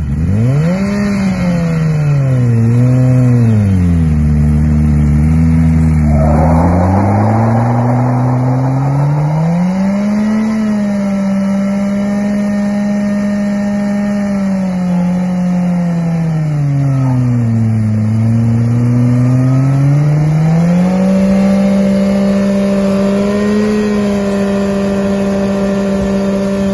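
2018 Suzuki GSX-R1000's inline-four engine revved up and down, then held at steady high revs, dropping once and climbing again, with a rush of tyre noise about six seconds in: the sound of a motorcycle burnout.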